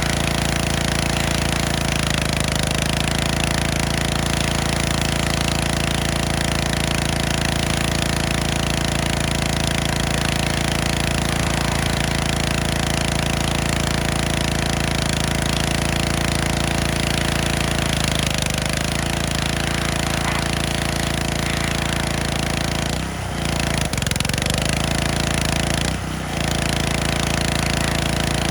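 Gas-engine pressure washer running steadily with its spray hissing. The spray briefly cuts out twice near the end.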